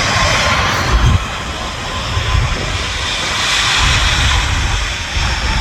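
Jet airliner engines running, a steady rushing noise with a faint whine that swells a little past the middle. Gusts of wind buffet the microphone with an irregular low rumble.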